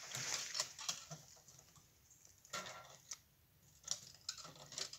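Scattered rustling and light knocks: a few short, separate noises, the clearest about two and a half seconds in and again near the end.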